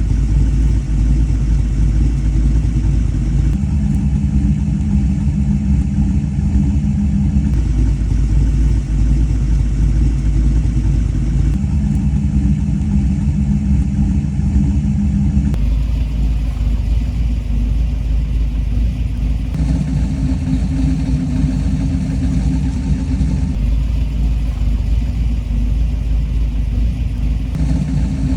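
A 363 cubic-inch stroker V8 runs at a steady speed through a 2.5-inch side-exit exhaust with an X-pipe. The sound switches every four seconds or so between two Borla muffler setups, the straight-through Pro-XS and the XR-1 mufflers with resonators, which differ in tone.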